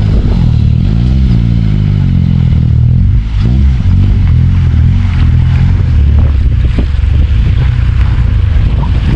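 An engine running, its pitch rising and falling about a second in and again after about three and a half seconds as the revs change.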